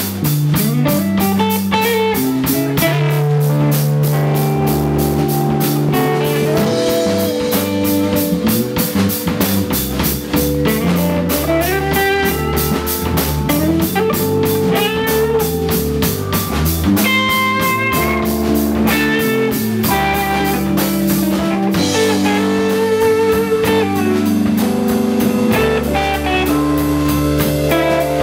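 Live psychedelic blues-rock band playing an instrumental passage with no singing: electric guitar to the fore over a drum kit, with bass guitar and electric keyboard.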